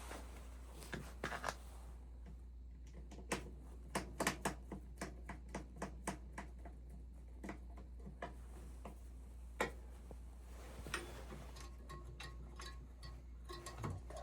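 Irregular clicks and taps of hand work on oil-burner parts, over a steady low hum.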